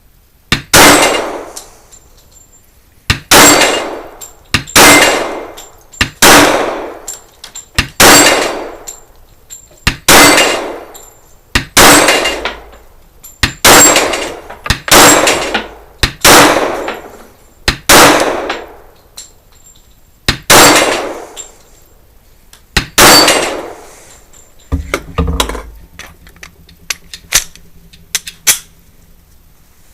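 Glock 41 .45 ACP pistol being fired slow and steady, about a dozen loud single shots one to two and a half seconds apart, each with a brief ringing echo. Near the end the shooting stops and a few softer clanks and knocks follow.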